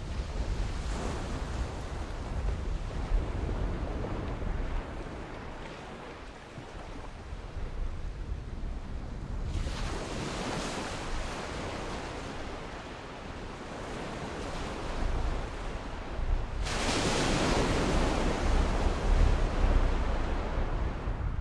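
Sea waves washing in, with two louder breaking waves rushing in about halfway through and again near the end. Wind rumbles low on the microphone throughout.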